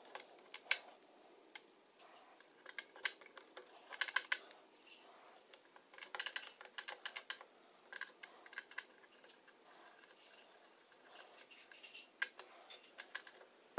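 Light, irregular clicks and scrapes of small metal parts being handled in the bobbin and feed-dog area of a Singer 401 sewing machine, coming in short clusters.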